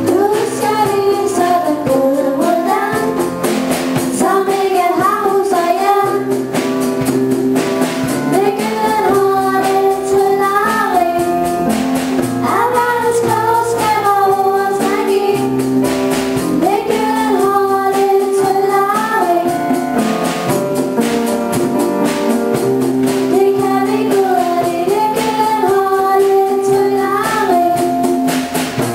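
Girls singing a song together into microphones over instrumental accompaniment with a steady beat.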